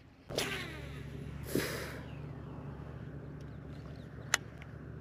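Boat motor starting with a sudden rush and then running with a steady low hum, a second rush about a second and a half in and a single sharp click near the end.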